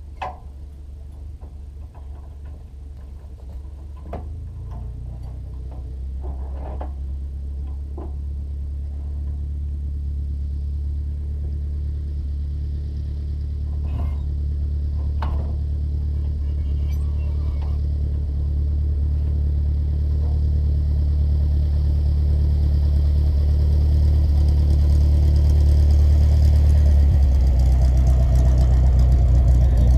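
A motor vehicle's engine running and drawing steadily closer, its low hum growing louder throughout, with its note shifting a few seconds before the end. A few light clicks sound in the first half.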